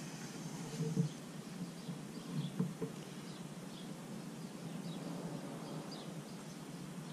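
Quiet outdoor ambience: faint, scattered bird chirps over a steady low hum, with two soft bumps about one and two and a half seconds in.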